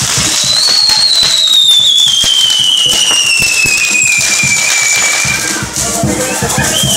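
Torito fireworks crackling and popping rapidly. One whistling firework gives a long whistle that falls slowly in pitch and fades out about five seconds in.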